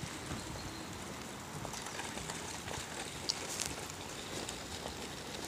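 Stroller wheels rolling and footsteps on wet asphalt: a steady rumble with scattered light clicks.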